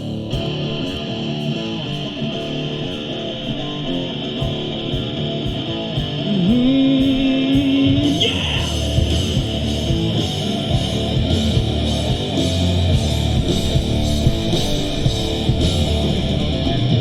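A live rock band plays a song's instrumental intro: guitar over drums, with a sliding note and the full band coming in louder about six seconds in.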